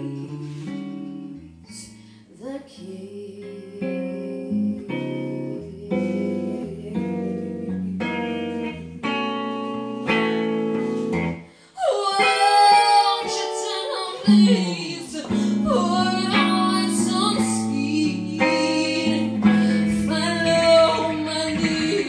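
Live jazz ballad: an electric archtop guitar plays chords. About twelve seconds in, a woman's voice comes in over it and sings long notes with vibrato.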